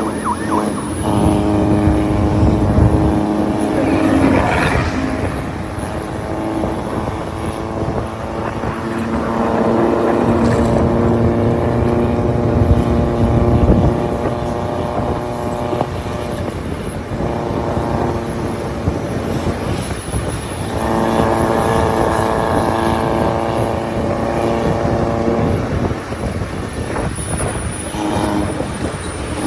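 Diesel engines of vehicles on a mountain road running hard with a steady engine note, swelling and fading as several go by in turn.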